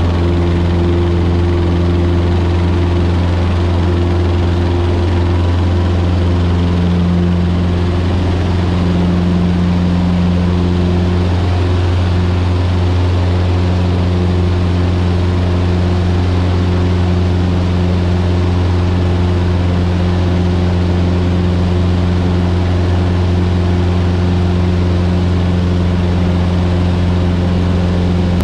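Cessna 150's four-cylinder Continental O-200 engine and propeller running at a steady, loud drone, heard inside the small cabin as the plane rolls down the runway and climbs away.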